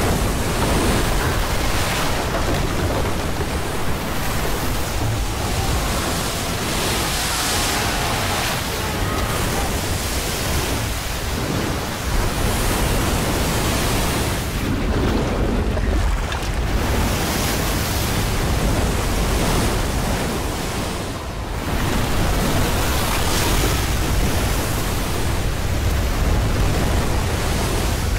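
Floodwater from a burst wooden dam surging down a rocky gorge: a loud, steady roar of rushing water. It dips briefly about three quarters of the way through.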